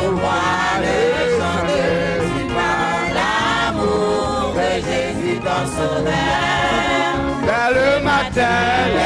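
Gospel hymn sung through a microphone, with many voices singing together over a steady bass line from a band.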